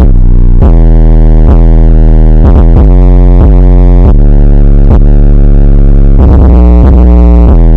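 Bass-boosted electronic music: a deep synthesizer bass plays sustained low notes that change pitch every second or so, with a quick stuttering run of short notes about two and a half seconds in. It is very loud, at the edge of clipping.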